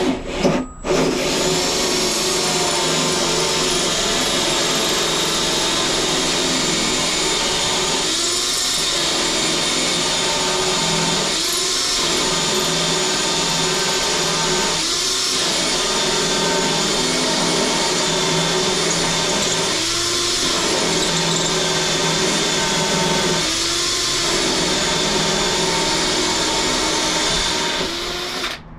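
Power drill driving a hole saw through a boat's fiberglass hull. The motor runs steadily for almost half a minute, dips briefly in pitch about five times, then stops near the end.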